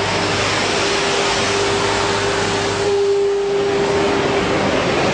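Quench water pouring onto red-hot metallurgical coke in a quench car, giving a loud, steady rushing hiss of water and steam, with a steady hum underneath.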